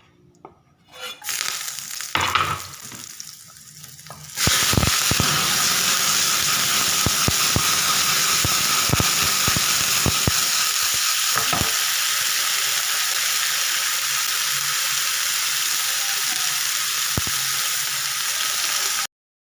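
Food sizzling in hot oil in a pan, getting much louder about four seconds in as more goes into the pan, with clicks and scrapes of a spatula stirring. It cuts off suddenly near the end.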